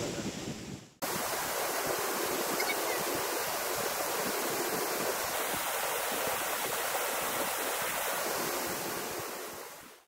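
Water rushing steadily over rocks at a waterfall pool: an even, unbroken hiss of falling and running water that fades out just before the end.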